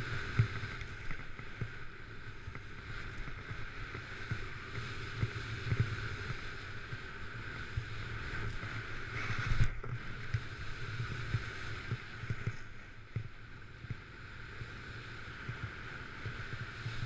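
Snowboard edge scraping and hissing over groomed snow through carving turns, with wind buffeting the action camera's microphone. A louder scrape comes about nine and a half seconds in.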